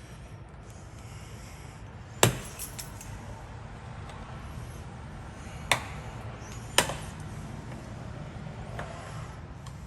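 Hand tool clinking and tapping against old metal door hardware while working it loose: three sharp metallic clicks, about two seconds in, near six seconds and a second later, with a few fainter ticks between.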